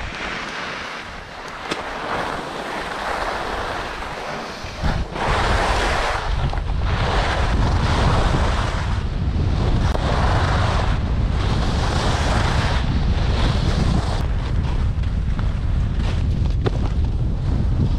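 Alpine skis hissing and scraping over the snow in a run of turns that swell and fade about once a second. From about five seconds in, wind buffets the microphone as a low rumble under it.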